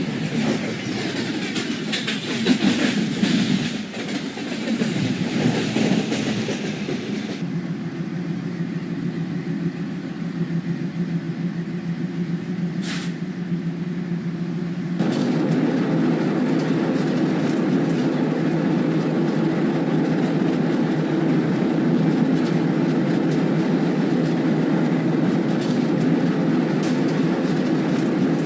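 WDG-3A ALCO diesel locomotive's 16-cylinder engine running with a steady low drone. There is extra rushing noise for the first several seconds, the sound changes abruptly about seven seconds in, and it turns louder about halfway through.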